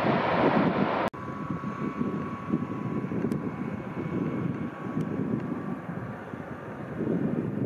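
Jet airliner on landing approach: a steady engine whine over a low rumble. About a second in, a louder rushing noise cuts off abruptly before the whine takes over.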